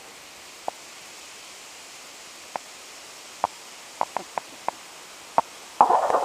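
Kayak on a river: a steady hiss with scattered light taps, a few in quick succession after about four seconds, and a short, louder splashy rush near the end.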